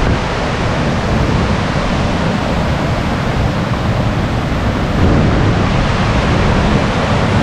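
Waterfall running steadily, an even rush of falling water that grows a little louder about five seconds in.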